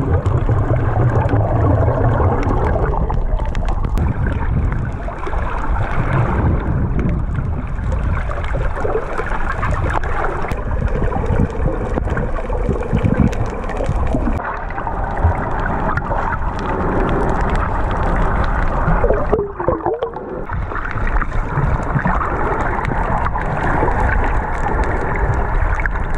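Muffled underwater water noise with gurgling bubbles around a snorkeller's waterproof camera, briefly quieter about twenty seconds in.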